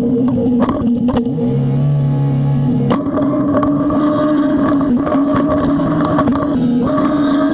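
John Deere backhoe's diesel engine running steadily while pushing snow with a blade, a lower steady tone joining it briefly from about one and a half to three seconds in, with scattered sharp knocks.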